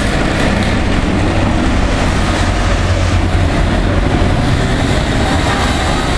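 Loud, steady street traffic noise: a low engine rumble from a passing city bus and other vehicles, strongest in the first three seconds or so.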